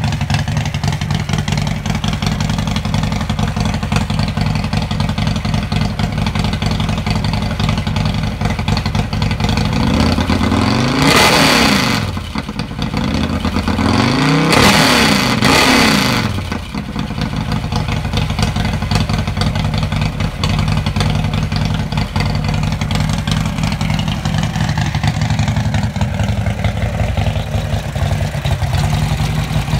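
Built 124-cubic-inch V-twin of a 2014 Harley-Davidson Street Glide, with big-lift cams, idling through a Dragula 2 exhaust. It is revved twice, about a third and about halfway through, the pitch rising and falling each time, and then settles back to idle.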